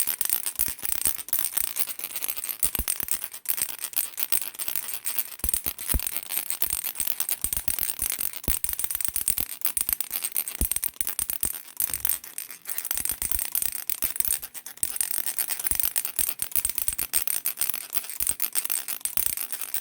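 A flower-shaped plastic baby rattle shaken continuously, its beads making a dense, rapid clicking that eases briefly about twelve seconds in and again a couple of seconds later.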